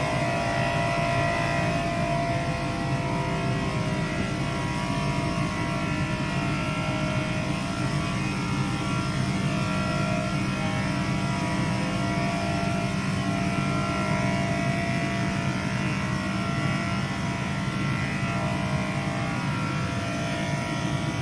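Steady machine hum: a low drone with several constant tones above it, unbroken and even in level throughout.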